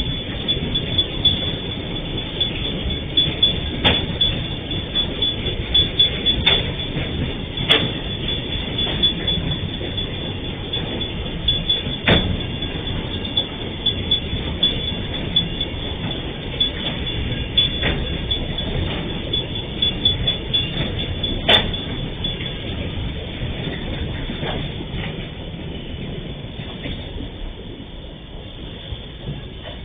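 Freight train of empty flat wagons rolling past, a steady rumble with sharp wheel knocks over the rail joints every few seconds. The rumble fades away near the end as the last wagons go by.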